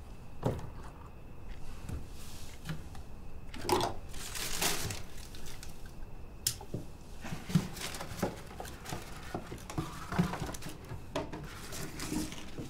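Handling sounds at a work desk: paper rustling and crinkling, with scattered small taps and knocks.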